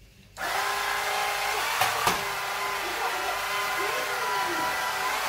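Cordless electric floor sweeper switched on about half a second in, its small motor then running steadily with a whine and a hiss.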